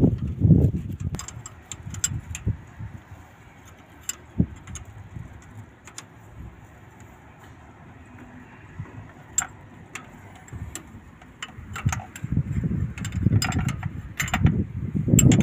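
Scattered light metallic clicks and taps of hand tools on the injector pipe fittings of a diesel excavator engine, which is not running. Low wind buffeting on the microphone near the start and again near the end.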